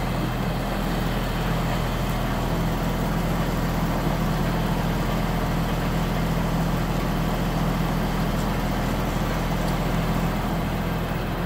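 Truck engine idling with a steady low hum, driving the hydraulic loader crane that is lowering a heavy weaving loom onto the truck bed.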